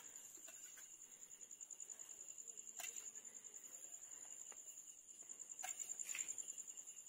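Crickets chirping in a steady, fast-pulsing high trill, with a few faint clicks about three seconds in and again near the end.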